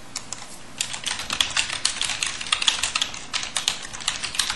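Typing on a computer keyboard: a quick, uneven run of key clicks, several a second, as a line of text is typed.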